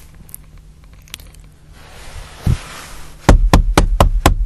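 A soft hiss and a single low thump, then five quick knocks on a door, about four a second.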